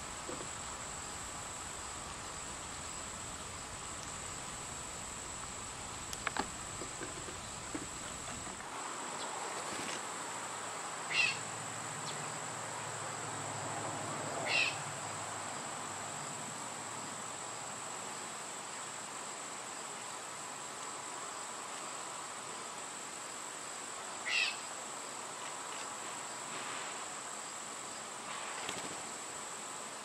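Steady high-pitched insect trilling over an even outdoor hiss, with three short chirps: two close together near the middle and one later.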